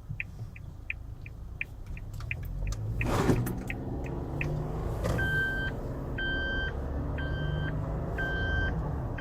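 Car engine running, with a quick run of small ticks in the first half. From about five seconds in comes a repeating two-tone electronic beep, roughly once a second, like a car's warning chime. A brief loud whoosh comes just after three seconds.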